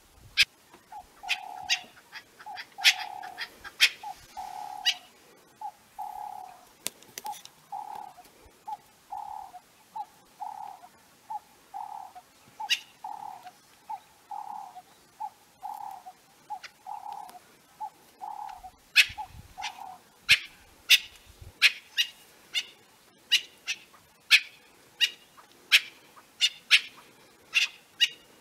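Francolins giving repeated short, sharp alarm calls, which come about two a second near the end: the sign of a predator close by. A lower note repeats steadily under them and stops about two-thirds of the way through.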